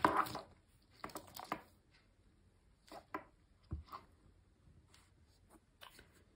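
Quiet handling noise: a phone case on a strap with metal snap hooks being moved about and set down on a leather desk mat, with a few scattered soft knocks and rustles.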